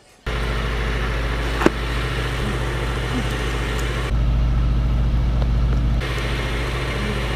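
Sport motorcycle engine idling steadily, heard close from the bike the rider sits on, with a single sharp click about a second and a half in.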